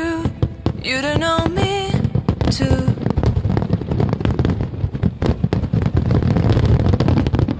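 A song with a singer plays for the first few seconds and then stops. After that comes the dense crackle of fireworks bursting, many sharp pops a second.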